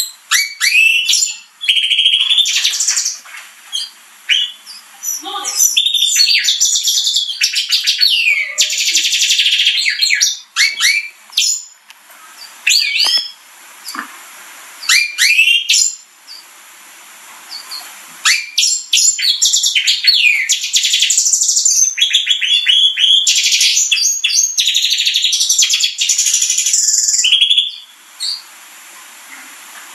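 Gloster canary singing: long, high-pitched warbling phrases full of fast trills and quick rising and falling notes, broken by short pauses, with the longest unbroken stretch in the second half.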